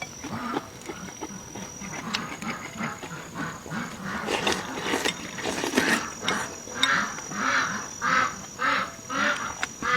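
A person chewing and smacking food close to the microphone, mouth-noise eating sounds. From about two-thirds of the way in, the chewing falls into a regular rhythm of about two chews a second.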